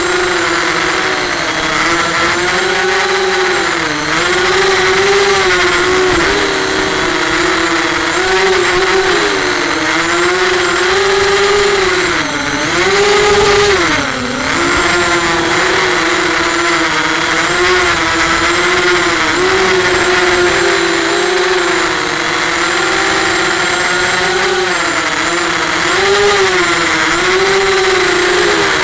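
FPV racing quadcopter's electric motors and propellers buzzing, heard from the onboard camera, the pitch rising and falling constantly with the throttle. The pitch drops sharply twice about halfway through.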